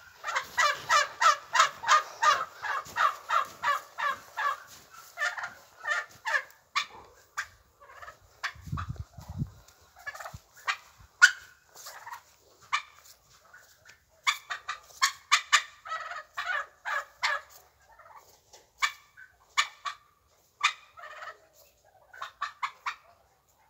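Domestic fowl calling in quick rattling runs of short calls: a long fast run at the start, scattered single calls, and another fast run about two-thirds of the way in.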